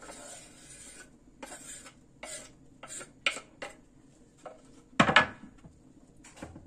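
Chopped onions scraped off a wooden cutting board into a pot: a run of short scrapes and knocks of the board against the pot, then a louder clatter about five seconds in as the board is set down on the granite counter.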